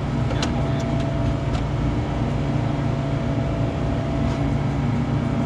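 Boat engine running steadily, a low hum with a faint steady whine, with a couple of light clicks in the first two seconds.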